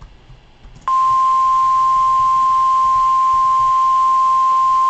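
NOAA Weather Radio 1050 Hz warning alarm tone: a single steady, loud tone that comes on suddenly about a second in, signalling that a warning message follows.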